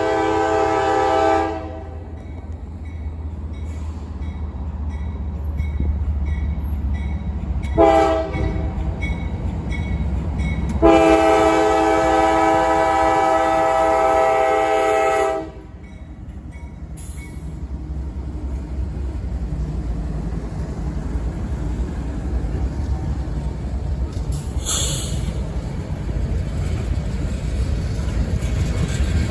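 Diesel locomotive air horn on the CSX L640 local, sounding its crossing signal: the end of a long blast, a short blast about eight seconds in, then a long blast of about five seconds. A steady low rumble of the approaching train runs underneath.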